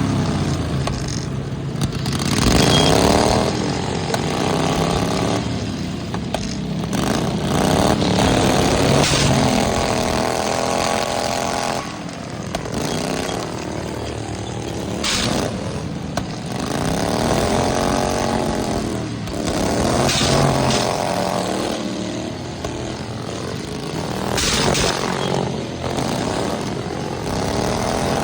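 Small lawnmower engines revving up and down again and again, with a few sharp knocks.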